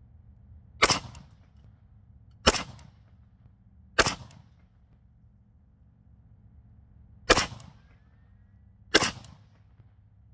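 AK rifle firing five aimed single shots, each a sharp crack with a short echoing tail: three about a second and a half apart, then a pause of about three seconds, then two more.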